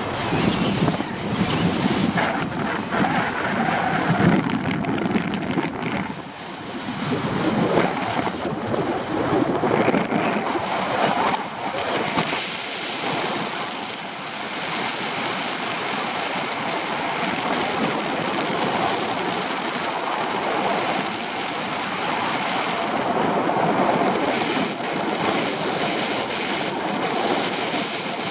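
Wind rushing over the microphone of a camera carried on a paraglider in flight, gusting louder and softer in the first dozen seconds and then going on more evenly.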